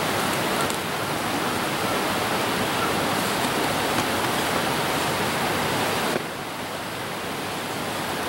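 Steady rushing noise with no clear pattern, dropping a little about six seconds in.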